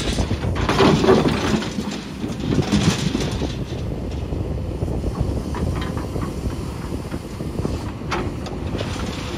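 Kobelco hydraulic excavator's diesel engine running steadily, with the steel bucket scraping and knocking against a broken concrete slab and rubble; a few louder scrapes come in the first three seconds.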